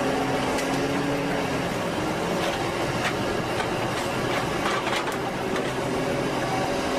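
A vehicle engine running steadily, with a few sharp clicks or knocks around the middle.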